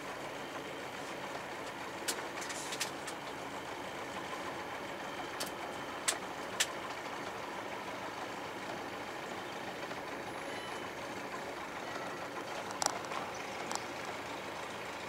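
Sailboat's inboard engine running steadily at low speed while the boat motors slowly, with several sharp clicks scattered through.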